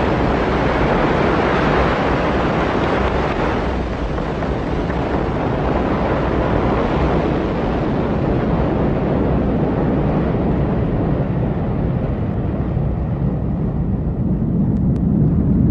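Ariane 5 rocket's main engine and two solid rocket boosters at liftoff and climb-out: a steady, dense rumble whose hiss slowly fades as the rocket climbs away, with the deep rumble swelling near the end.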